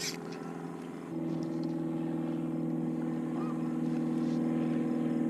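A motor engine running steadily with an even hum; it grows louder about a second in and then holds.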